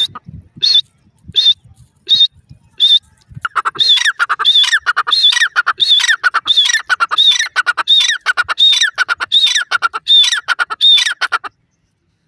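Grey francolin calling loudly. It gives a few single sharp high notes less than a second apart, then from about three and a half seconds in a fast, repeated phrase of a high note followed by lower curving notes. It stops abruptly near the end.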